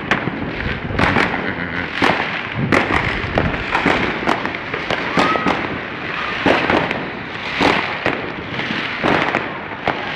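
Fireworks and firecrackers going off all around: a continuous, uneven run of bangs and cracks, several a second at times, with a short whistling tone about halfway through.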